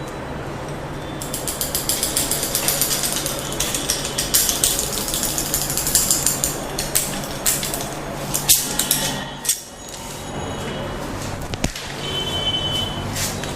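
Rapid, irregular clicking and crackling from a close-miked head and neck massage. It starts about a second in and thins to a few separate clicks near the end.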